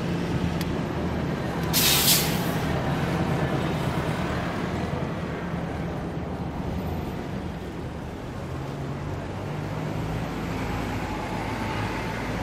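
Busy city-intersection traffic: engines of cars, trucks and buses running in a steady din, with a loud hiss of a heavy vehicle's air brakes about two seconds in. A deeper engine rumble comes in near the end.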